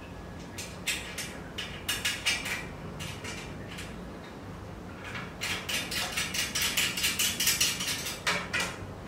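Wrench tightening an M5 nut on the bolt that holds a metal angle gusset to the leg, making sharp metallic clicks. There are a few scattered clicks over the first three seconds, then a fast, steady run of about seven clicks a second from about five seconds in to about eight.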